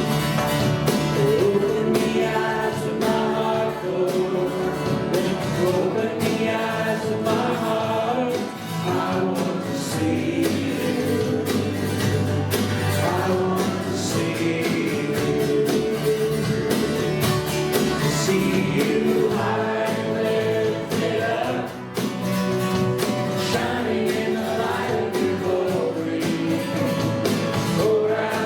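Live church praise band playing a worship song, with voices singing over guitar and a steady beat.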